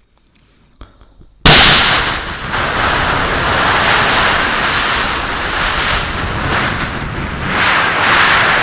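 A man's mouth-made imitation of a shoulder-fired Javelin missile launch: after a short silence, a sudden loud blast about a second and a half in, followed by a long rushing hiss that swells and eases as it goes on.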